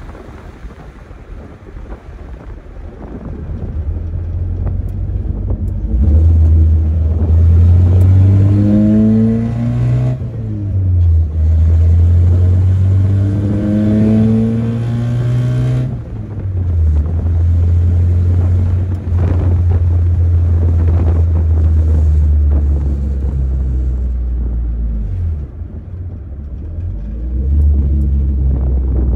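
Chevrolet S10 pickup's stock four-cylinder engine pulling hard at wide-open throttle, rising in pitch through two gears with a sudden drop at each shift of the manual gearbox. It then settles to a steady drone at freeway speed, easing off briefly near the end.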